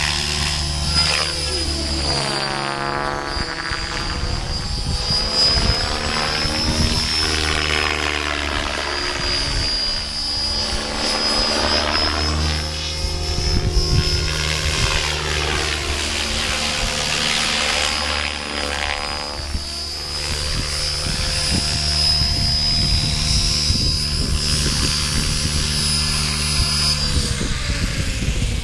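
Compass 7HV radio-controlled helicopter in flight: steady rotor and drive sound with a constant high whine, sweeping and phasing as it moves around the field. The low drone shifts in pitch a few times.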